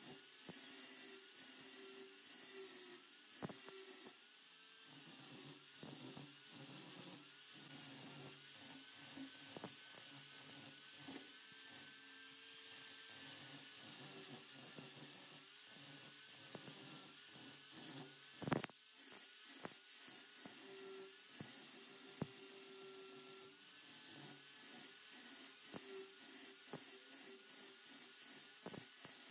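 Angle grinder with an abrasive disc grinding the steel face of a hammer head held in a vise: a high motor whine that wavers as the disc bites and eases, over a steady grinding hiss, with the loudness pulsing. One sharp click about two-thirds of the way through.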